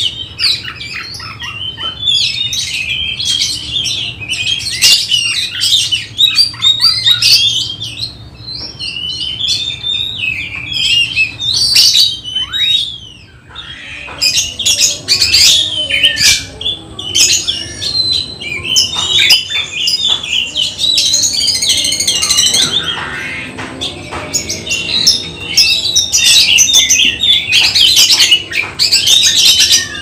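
Caged oriental magpie-robin (kacer) singing: a loud, fast, varied string of whistled and chirping notes that breaks off briefly about 13 seconds in.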